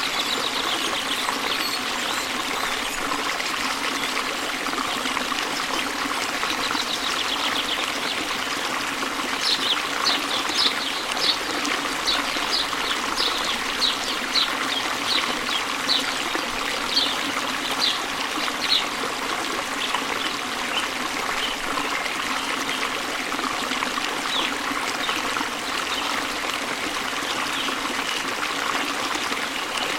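Stream water running and trickling steadily. About a third of the way in, a bird repeats a short, high call about twice a second for some ten seconds.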